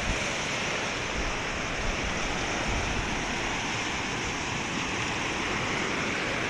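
Small waves breaking and washing up on a Lake Michigan beach: a steady wash of surf, with wind rumbling on the microphone.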